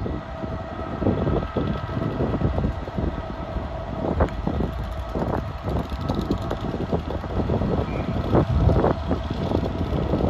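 Freight train rolling past: a steady rumble with many irregular knocks from the wagon wheels running over the rails.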